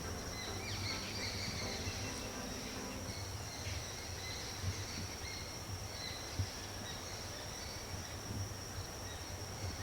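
Rural outdoor ambience: insects such as crickets hold a steady high-pitched chirring, short bird chirps come and go, and a low steady rumble runs underneath.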